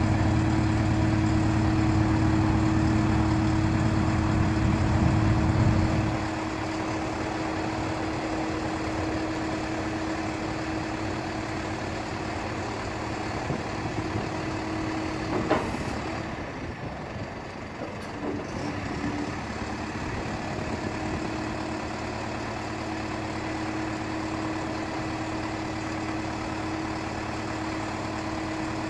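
DAF LF45 refuse truck running while its hydraulics raise the rear bin lift: a steady engine hum with a steady whine. The hum is louder and heavier for the first six seconds, then settles lower. There is a single knock about fifteen seconds in.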